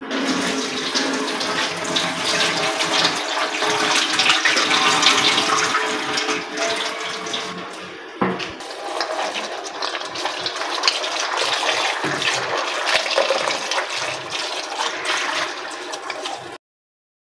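Tap water running into a steel bowl of soaked chickpeas at a stainless-steel kitchen sink, as the chickpeas are stirred and rubbed by hand to rinse them. The sound cuts off suddenly near the end.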